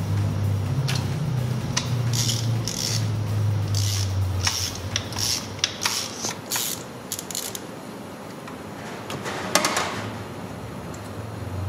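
Ratchet wrench clicking in short irregular runs as it works a 5/8-inch spark plug socket on an extension to unscrew a spark plug. A brief louder rattle comes near the end.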